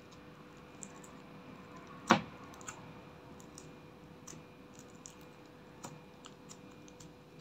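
Clear slime being pressed and kneaded by hand with clay and crushed makeup in a glass dish: scattered small sticky clicks, with one much louder click about two seconds in.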